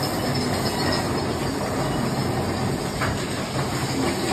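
Big Thunder Mountain Railroad mine train climbing a lift hill: a steady rattle and rumble of the coaster cars and track.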